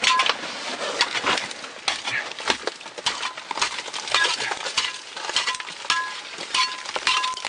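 Irregular scraping, crunching and clinking of a caver's boots and gear against hard snow, ice and rock while moving through a narrow passage, with short high squeaks in the second half.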